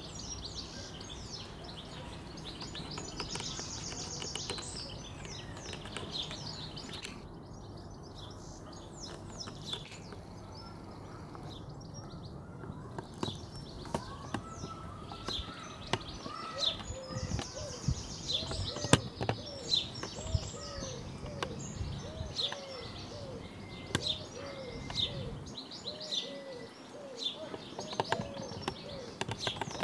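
Wild birds chirping and singing, with many short high chirps and, from about halfway, a lower call repeated over and over, over a steady trickle of water.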